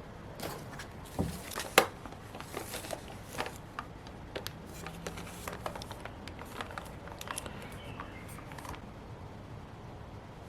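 Hands working with paper, stickers and tape on a planner page: a run of small clicks, taps and rustles, the sharpest click about two seconds in, thinning out near the end.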